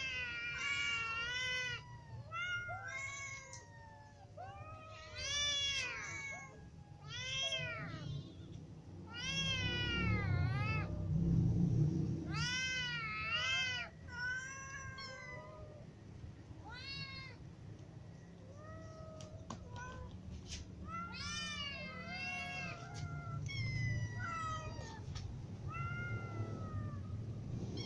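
A group of cats, kittens and adults, meowing over and over out of hunger, many calls overlapping, each rising and falling in pitch. A low rumble sits under the calls around the middle.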